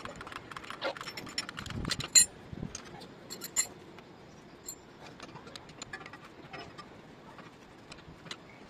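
Scattered metallic clinks and clicks of spanners and metal parts being handled while working on a car's rear brake caliper, the sharpest clink about two seconds in.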